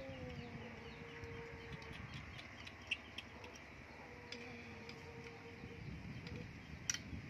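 Quiet outdoor background with a few light clicks of plastic toys: toy fishing rods and plastic sea animals being handled. The sharpest click comes near the end.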